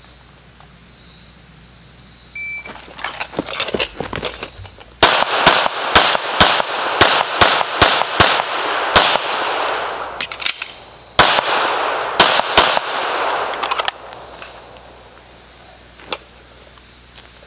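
Sig Sauer P320 9mm pistol firing a timed drill: a short electronic beep about two seconds in, which is the shot timer's start signal, then a rapid string of about ten shots, a pause of about a second, and four or five more shots.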